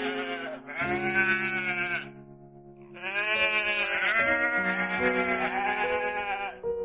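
Sheep bleating: a bleat about a second in, then a long wavering bleat from about three seconds, over soft piano music.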